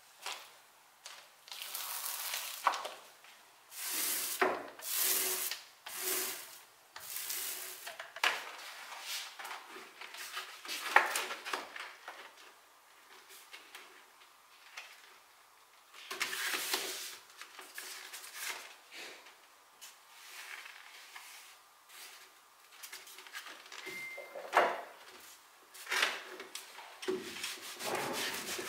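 Thin wood veneer being handled: a string of short dry swishes and scrapes as the sheet is cut with scissors, slid over newspaper and pressed against a wooden cabinet side. Near the end a clothes iron slides over the veneer.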